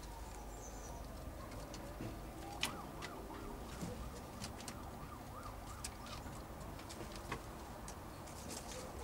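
Ringtail possums clambering about on wooden shelves and rope, making scattered light clicks and scrapes of claws on wood, one sharper knock about two and a half seconds in. Faint tones rise and fall in the background.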